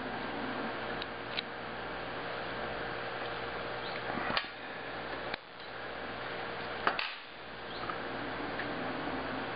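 Handling noise from pinning on a wooden spreading board: a few scattered sharp clicks and taps of fingers and pins, the strongest about four and a half and seven seconds in, over a steady hiss and low hum.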